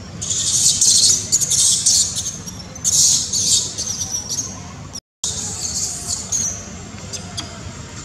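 Young macaque crying in shrill, high-pitched screams: two long bursts in the first half and a shorter one after a brief break.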